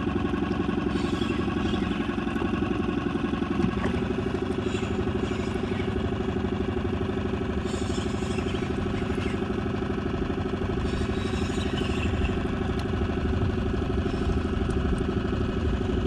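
Boat's outboard motor running steadily at low trolling speed, its pitch barely changing.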